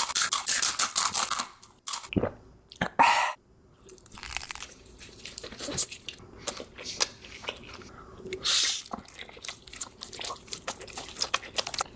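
Biting and chewing a giant Takis rolled tortilla chip: loud, dense crunching in the first second or so, then quieter chewing with scattered crunches.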